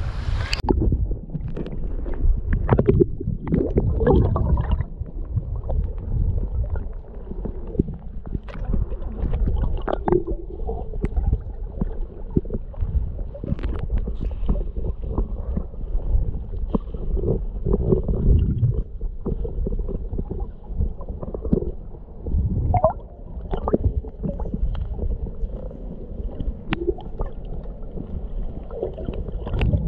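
Muffled underwater sound from a camera held under shallow sea water: low rumbling and gurgling of moving water, with scattered small clicks.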